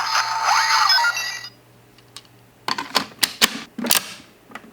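Electronic sound effect from a Kamen Rider W Double Driver toy belt, a burst of synthesized tones and sweeping glides that cuts off about a second and a half in. After it come several sharp plastic clicks from the belt and memory being handled.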